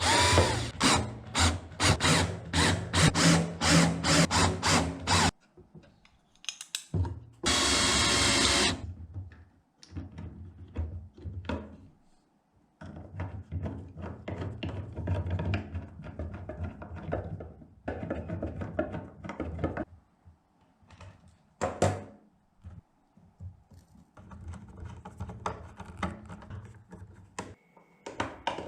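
Workshop build sounds: a percussive music track for the first few seconds, then a power drill running in one short burst, followed by on-and-off scraping, rubbing and knocking of tools on wood.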